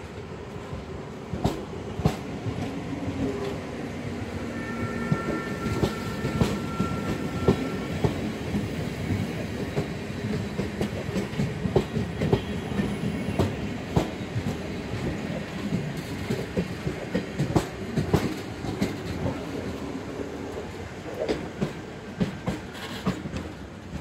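NS Sprinter SGM (SGMM) electric multiple unit rolling past close by, a steady rumble with its wheels clicking irregularly over rail joints and points. A brief thin high tone sounds for a few seconds, starting about five seconds in.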